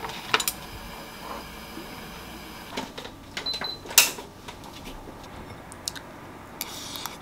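Scattered light clicks and clatter of dishes and cutlery on a table. About four seconds in, a brief high beep and a sharp click as an electric standing fan is switched on.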